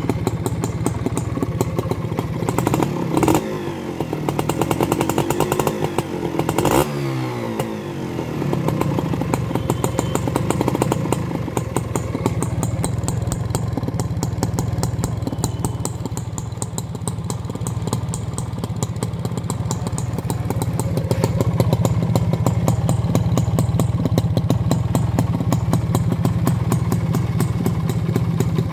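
Honda H100S motorcycle's small two-stroke single-cylinder engine idling. A few seconds in it is revved up and let back down once, with a sharp knock near the start and end of the rev, then it settles to a steady idle.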